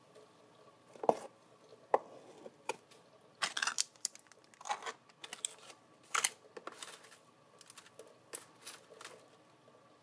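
Handling noises around a commercial coffee brewer: a few sharp clicks and knocks, then irregular bursts of crinkly, crackling noise, over a faint steady background.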